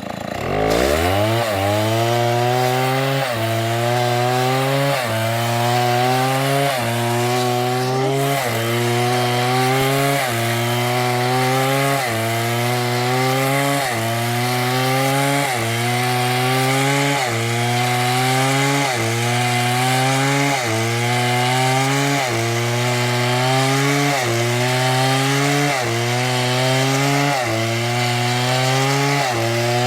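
Large two-stroke chainsaw cutting into wood under load. Its engine note rises and then drops back about once a second, steadily. At the start the note sags sharply, then climbs back up.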